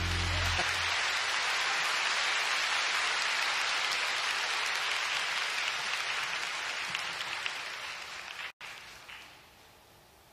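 Audience applauding in a steady, even patter that thins out over the last few seconds and breaks off abruptly about eight and a half seconds in. A low sustained music chord stops about half a second in.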